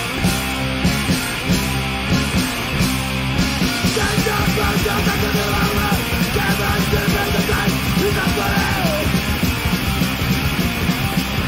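Hardcore punk song played loud and fast by a full rock band, with a shouted vocal coming in about four seconds in.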